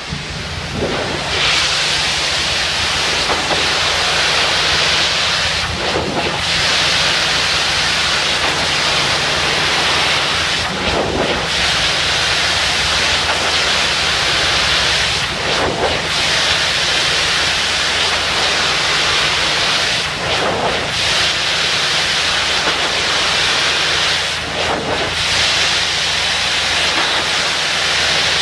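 Pressure-washer jet spraying water against a fabric awning: a loud, steady hiss of spray over a steady low machine hum. The hiss dips briefly about every five seconds as the wand is swept along.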